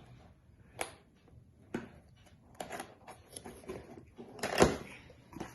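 Cardboard box and packaging being handled and opened: a series of separate knocks and short rustles, the loudest near the end.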